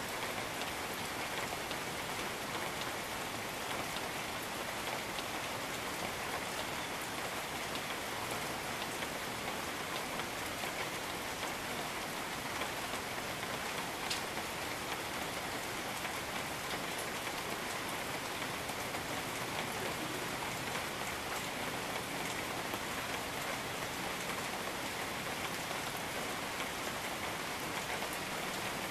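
Steady, heavy rain falling on jungle foliage and surfaces, a dense even patter with individual drops ticking through it.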